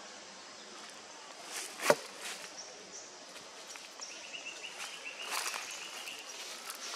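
Outdoor forest ambience with light rustling and one sharp snap about two seconds in, then a high, rapid chirping for about two seconds in the second half.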